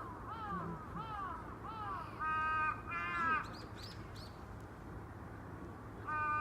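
A crow cawing: a quick run of short, arched caws, then two longer, harsher caws about two and three seconds in, and another starting near the end. Faint high chirps from smaller birds come in around three seconds.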